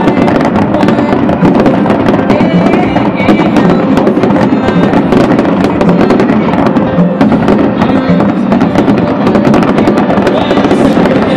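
Fireworks bursting in quick succession: a dense, unbroken run of bangs and crackles from many shells, with music playing along underneath.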